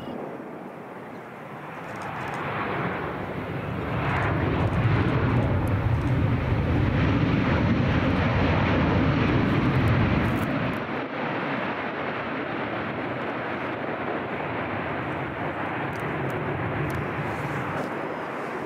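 Boeing 737-800's twin CFM56-7B jet engines going into reverse thrust after touchdown: a jet rumble that swells about two seconds in, holds loud, and falls away about ten seconds in as the reversers come out of reverse. The engines then run quieter during the rollout.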